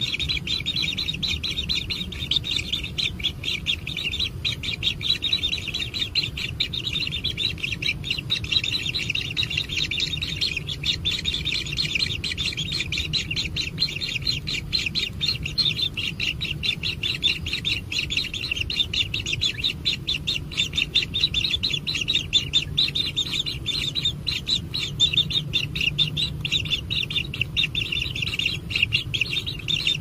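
White-throated kingfisher nestlings giving food-begging calls: a continuous, rapid, high-pitched chirping chorus, over a low steady hum.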